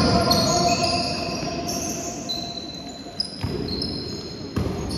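Basketball shoes squeaking on a sports-hall floor in drawn-out squeals that shift in pitch, with two thuds in the second half.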